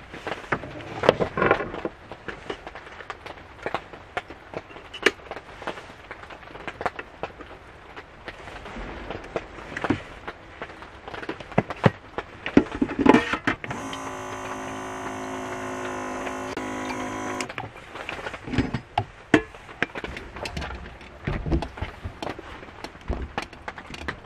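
Clicks and knocks as a collapsible electric kettle and its power strip are handled and the kettle is set back on its base. Midway there is a steady hum of several even tones lasting about three and a half seconds while the kettle is filled at the sink.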